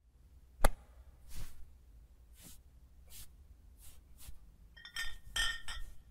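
Sparse sound effects for an animated cartoon intro: one sharp click, a few short soft noises spaced about a second apart, then a quick cluster of metallic clinks near the end.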